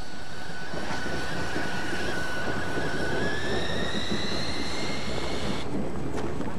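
LMS Black Five 4-6-0 steam locomotive running away along the track, a steady rumble of the engine and its wheels on the rails. A thin high squeal sits over the rumble and steps up slightly in pitch about three seconds in. The sound turns duller near the end.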